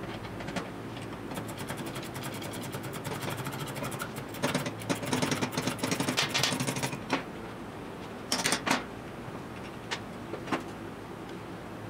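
A ratchet turning the nut on the threaded rod of a homemade coil-spring compressor, clicking rapidly and evenly for several seconds as the coil spring is unloaded from its shock absorber. The clicking grows louder and more clattery partway through, then a loud burst of metal clicks and a few single knocks of steel parts follow near the end.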